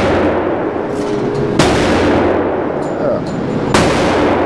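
Two gunshots about two seconds apart, each ringing out in the reverberant room of an indoor shooting range.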